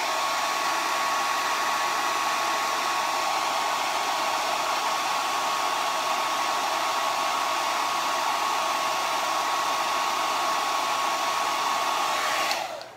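Handheld hair dryer blowing steadily, a rush of air with a thin steady whine, switched off near the end. It is drying freshly dabbed acrylic paint.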